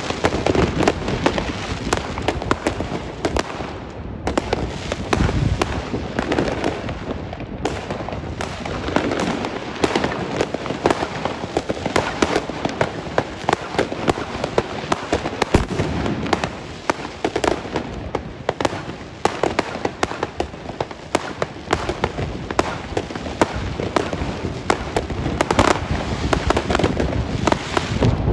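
Many fireworks going off at once: a dense, unbroken run of bangs, pops and crackles from aerial shells and ground batteries.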